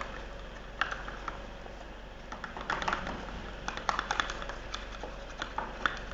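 Stirrers clicking and tapping against the container as clear glue and hair gel are stirred together for slime, in irregular clusters of light clicks.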